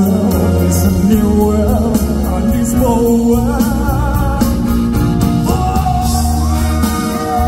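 Live, amplified male vocal with band accompaniment: a sung melody with held, wavering notes over a heavy bass line and steady drums, heard in a large hall.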